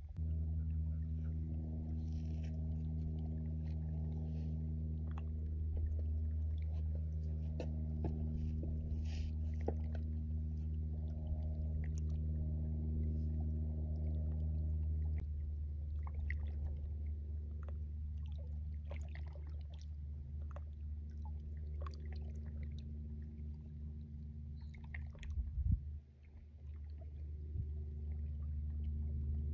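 Low, steady engine drone with a few even tones, shifting slightly about halfway through and dropping away briefly near the end, with faint scattered clicks over it.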